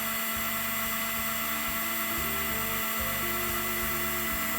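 Small electric angle drill running steadily as its bit bores into a brass tubular lock to drill out the plug's retaining pin. The bit is wandering off course into the lock housing.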